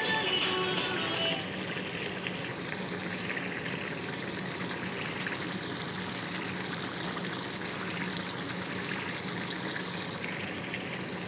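A pan of chicken and potato stew with green chilies simmering on a gas stove: a steady bubbling and popping of thick sauce. Background music fades out about a second and a half in.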